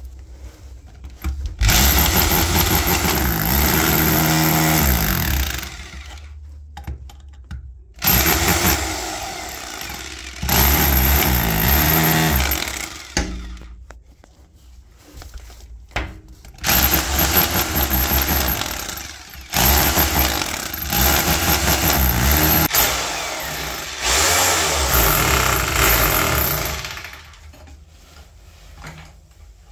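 Electric demolition hammer chiselling through wall tiles to reach a leaking water pipe behind them, run in about six bursts of a few seconds each with short pauses between.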